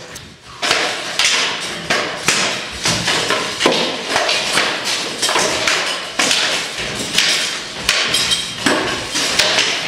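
SCA armoured combat sparring: rattan swords striking shields, helmets and armour in a rapid, irregular series of sharp knocks and thuds, beginning just under a second in.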